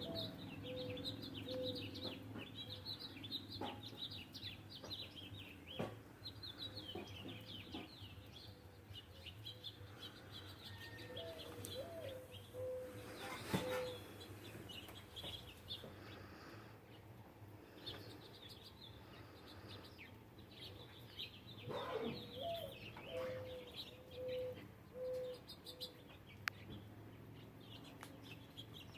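Small birds chirping and twittering around seed feeders, with a low call of one rising note followed by a few steady notes, heard twice: once near the middle and again later.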